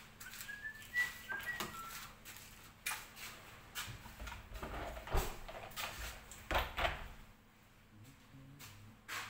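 Scattered knocks, clicks and clatter of tools and parts being handled while working on a jet ski, with a few heavier thumps about two-thirds of the way through. A few short high chirps sound about a second in.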